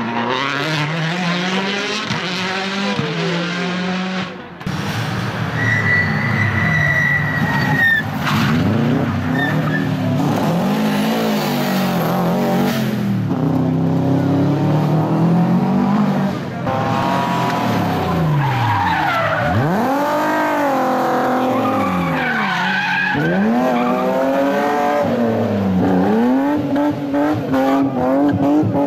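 Rally car engines at full race pace, revving hard and dropping sharply again and again through gear changes and braking, with sudden switches from one car to the next. A brief high squeal sounds about six seconds in.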